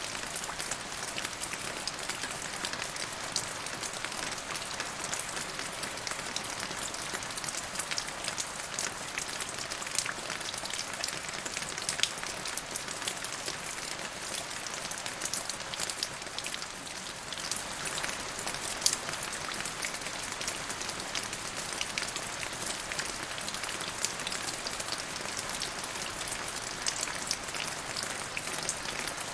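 Steady rain falling, with many individual drops ticking sharply on a nearby surface and a few louder drop hits.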